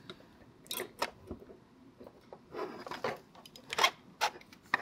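3D-printed plastic blaster parts clicking, knocking and scraping against one another as housing pieces are slid together along their dovetails: scattered sharp clicks, with a brief scrape about two and a half seconds in.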